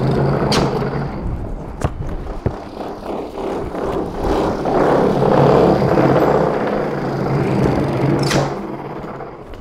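Homemade ball launcher's two motor-driven small wheels spinning up and running with a steady whir, with a few sharp knocks about half a second, two seconds and eight seconds in.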